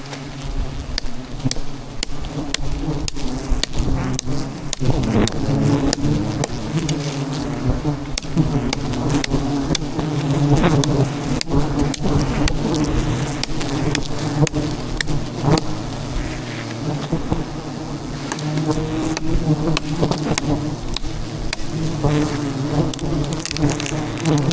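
A dense swarm of giant honey bees (Apis dorsata) buzzing loudly around their disturbed hive, many wingbeat tones overlapping, with sharp clicks throughout.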